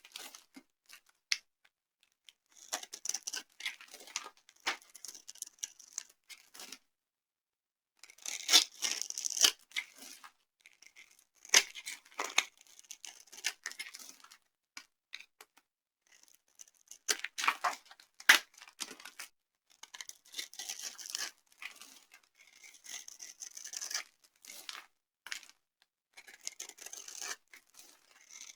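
Dry soap being crushed and crumbled, crisp crackling crunches coming in runs of a second or two with short pauses between them.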